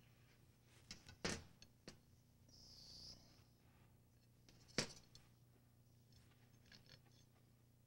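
Faint sounds of a knife slicing a round loaf of bread on a china plate: two sharp clicks of the knife against the plate, a little over a second in and again over three seconds later, with a short soft scrape between them and a few light ticks.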